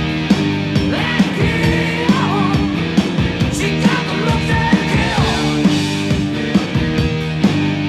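Background rock music with a drum beat.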